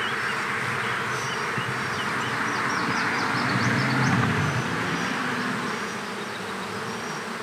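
Honey bees buzzing in a steady hum around a brood frame lifted from an open nucleus colony. The hum swells a little about halfway through.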